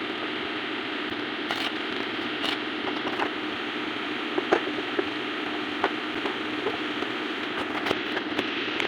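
Stick (arc) welding: a steady hissing arc with a faint hum and scattered sharp crackles and pops.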